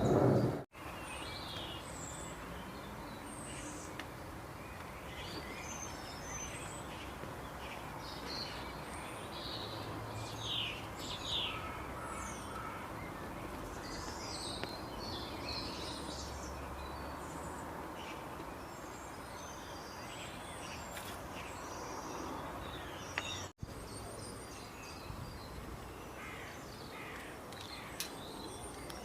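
Steady outdoor hiss with many short, high chirps and calls scattered through it, in no regular rhythm.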